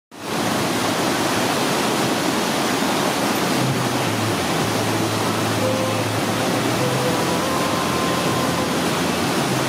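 Whitewater of an artificial slalom channel rushing over its drops and stoppers, a steady loud noise with no breaks.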